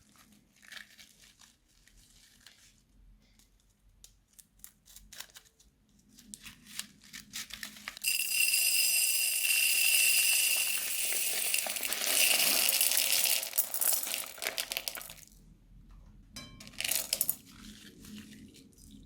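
Plastic piping bags of crunchy slime being handled and squeezed: crinkling and crackling. Scattered soft crackles at first, then a loud, dense stretch of crackling from about eight seconds in until about fifteen, and a short burst near the end.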